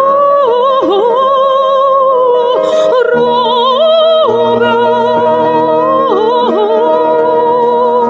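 Background music: a woman singing slow, long held notes with vibrato over a steady low accompaniment.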